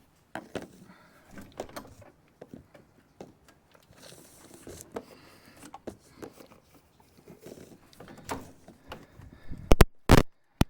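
Handling noise from hands and tools working a fan belt onto the engine pulleys: scattered light knocks, clicks and scrapes, with two sharp, loud knocks near the end.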